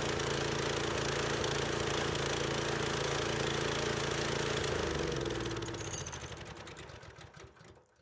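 Band sawmill's small gas engine running steadily, then shut off about five seconds in, its hum falling in pitch and dying away as the engine and band wheels spin down to a stop.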